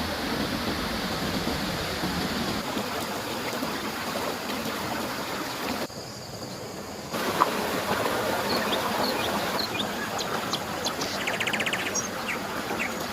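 Steady rush of a flowing river, briefly dropping away about six seconds in. From about eight seconds, small birds chirp over it, and one gives a quick trill near the end.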